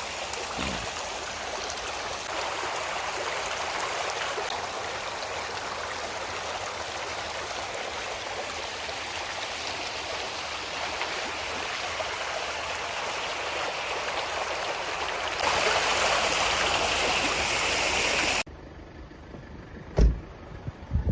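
Reservoir overflow water rushing steadily, a continuous hiss-like roar of spilling floodwater that grows louder late on. It cuts off sharply near the end, leaving a much quieter stretch with a single thump.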